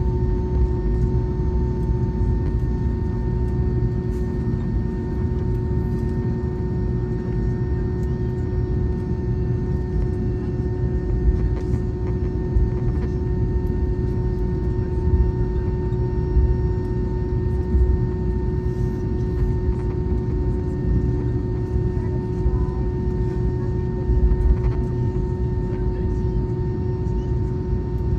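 Steady low rumble and hum inside the cabin of an Airbus A320neo as it arrives at the gate, with a few steady droning tones over the rumble.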